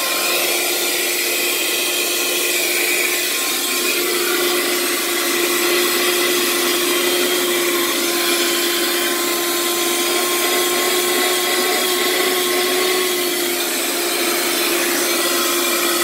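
Cheap handheld car vacuum cleaner running steadily. Its small DC motor, like a slightly larger Tamiya hobby motor, spins a fan, giving an even whine over the rush of air.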